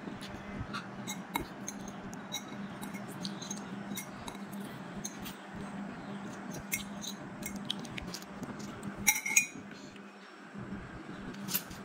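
Metal fork clinking and scraping against a ceramic plate as noodles are eaten. Scattered small clicks, with a louder flurry of clinks about nine seconds in.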